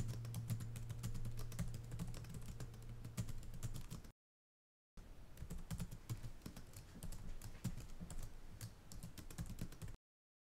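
Keyboard typing sound effect: rapid, uneven key clicks in two runs, the first about four seconds long and the second about five, with a silent pause of about a second between them. The clicks cut off abruptly near the end. A low hum fades out in the first two seconds.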